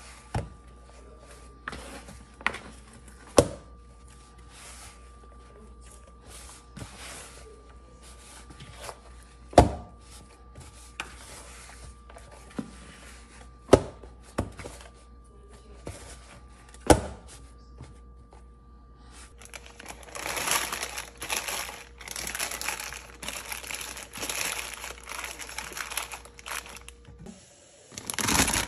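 Chapati dough being kneaded by hand in a bowl, with a few sharp dull knocks of the dough and bowl. From about twenty seconds in, plastic film crinkling as it is handled and spread over the bowl, pausing briefly and starting again near the end.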